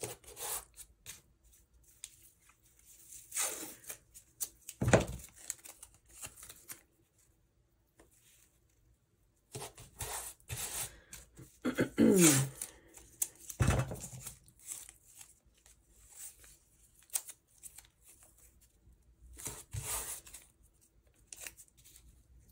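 Masking tape being pulled off its roll, torn into strips and pressed down onto paper: irregular rips and rustles, with one squealing pull that falls in pitch about halfway through. A few dull knocks are mixed in.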